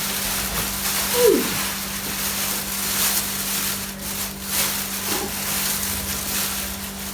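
Rustling and scraping of flour being scooped with a measuring cup and poured into a mixing bowl, with a steady low hum underneath and a short falling squeak about a second in.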